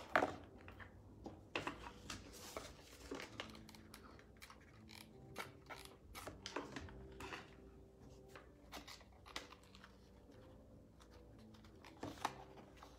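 Faint handling of cardboard and paper: scattered light taps, knocks and rustles as cardboard puppet pieces are moved, pressed and glued together on a wooden table.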